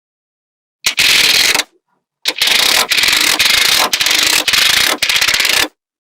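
Small magnetic balls clattering and clicking against each other in dense, rapid ticks: a short burst about a second in, then a longer run of clicking from about two seconds in until shortly before the end.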